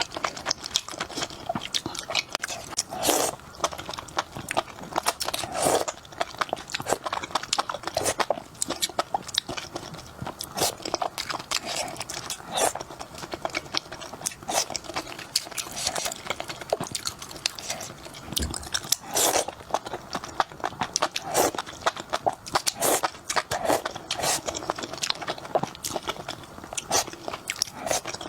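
Close-miked crunchy eating: a person biting and chewing crisp food, with continual irregular crackling crunches.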